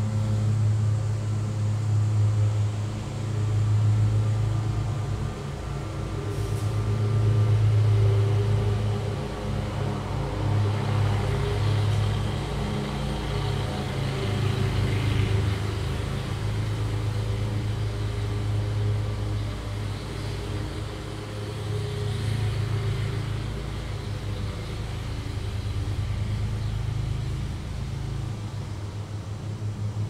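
Lawn mower engine running steadily, its low hum rising and falling in loudness every few seconds as the mower works back and forth.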